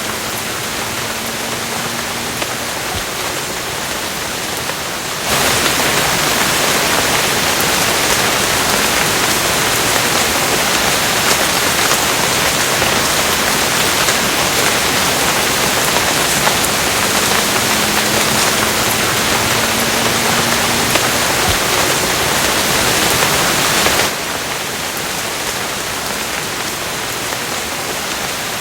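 Steady rain. A louder, hissier rush cuts in abruptly about five seconds in and cuts out just as abruptly near the end.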